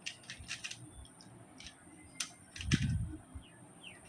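A plastic Rubik's cube being twisted quickly by hand, its layers clicking sharply in an uneven string, with a dull low thump about two and a half seconds in.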